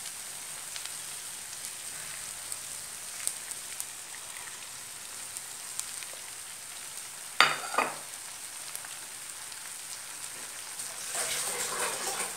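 Stuffed brinjals and onions sizzling steadily in an oiled frying pan as watery masala is poured in. A short, loud clatter comes a little past halfway, and a louder rough rush of noise comes near the end.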